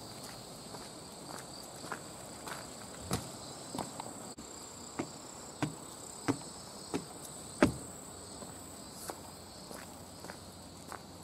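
Footsteps crunching on a gravel and dirt path, about one and a half steps a second, with the heaviest step about two-thirds of the way through. A steady high chirring of insects runs underneath.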